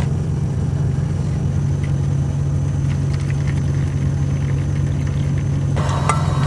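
Diesel engine of a semi truck idling steadily, heard from inside the cab as a low, even drone.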